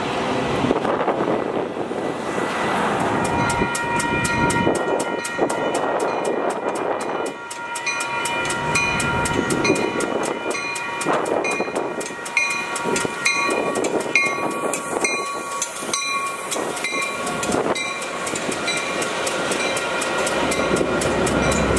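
Metra bilevel commuter train rolling slowly through a curve, the wheels rumbling and clattering on the rails. From about three seconds in, a bell rings over and over, about twice a second, as the train approaches and passes.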